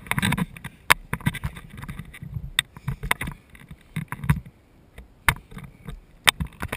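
Irregular knocks, clicks and rustling from a body-worn action camera being jostled as its wearer moves about in long grass.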